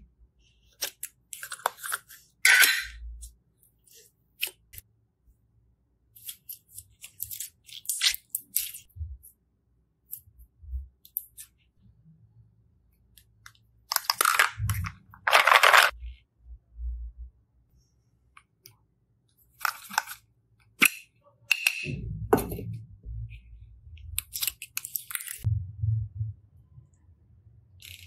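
Hands squeezing and pressing slime, giving short scattered sticky crackles and squelches, with a longer, louder squish about halfway through as clear slime is squeezed. A low hum comes in near the end.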